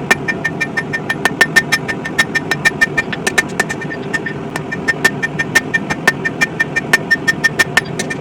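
Hammer striking steel on an anvil in quick runs of ringing blows, several a second with short pauses between runs, over the steady roar of a forge.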